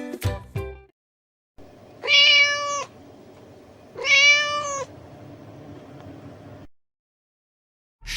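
A domestic cat meowing twice, each meow a little under a second long and about two seconds apart, rising slightly in pitch and then falling. The last notes of music fade out just before.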